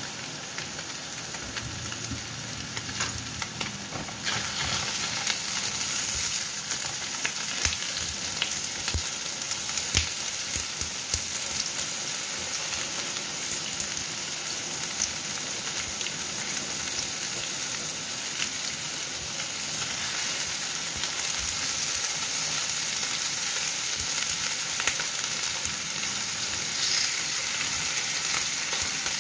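Whole fish and ginger slices sizzling and crackling in hot oil in a non-stick frying pan, being half-fried before going into a soup. The sizzle grows louder about four seconds in, and a spatula pushes the fish around near the end.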